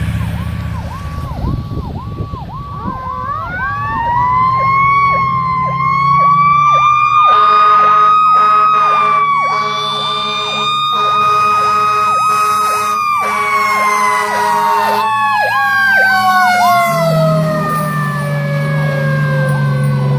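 Fire engine running code 3. One siren sweeps rapidly up and down in a fast yelp throughout. A second siren rises to a high wail about three seconds in and slowly winds down from about thirteen seconds. Horn blasts sound between about seven and fifteen seconds in, all over the truck's engine rumble.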